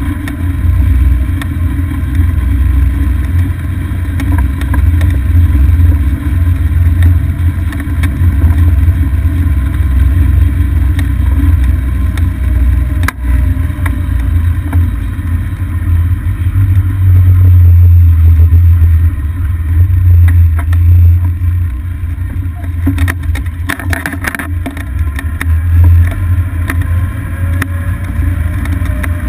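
Golf cart driving along a paved road, heard as a steady deep rumble of wind buffeting and road noise on a cart-mounted action-camera microphone, with a few seconds of clicks and rattles near the end.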